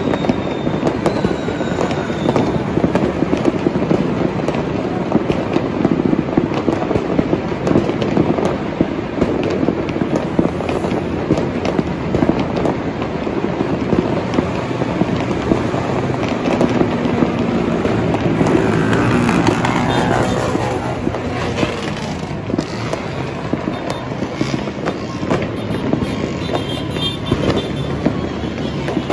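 Fireworks and firecrackers going off across the city, a dense, continuous crackle of pops that eases slightly toward the end. Traffic runs on the highway below, with one vehicle passing about two-thirds of the way through.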